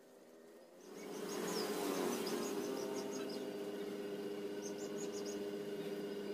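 A steady buzzing drone with several even pitches sets in about a second in and holds, with a few faint high chirps over it.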